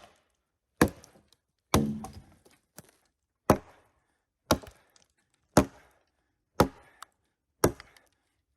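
Firewood being chopped: a series of sharp chopping blows about once a second.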